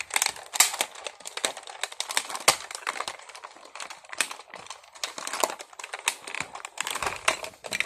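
Rapid, irregular clicks and taps of hard plastic as a Buzz Lightyear action figure is handled and its moving parts are worked.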